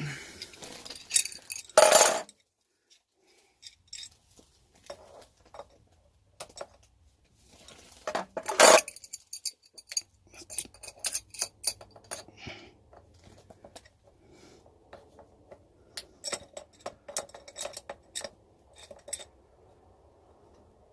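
Two adjustable wrenches clinking and knocking against the hot water line fitting of a gas water heater as the connection is tightened. Irregular metallic clicks and clinks, with louder knocks about two seconds in and near nine seconds, and a quick run of clinks late on.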